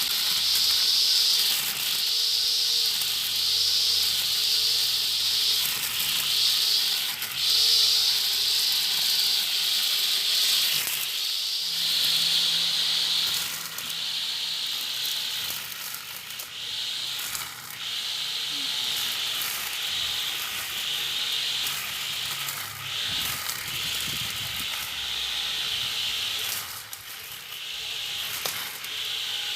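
Homemade brush cutter driven by a blender motor, running with a high-pitched hissing whir that swells and dips about once a second.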